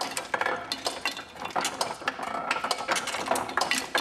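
Quick, irregular clicking and clinking of small metal pieces knocking together, several clicks a second.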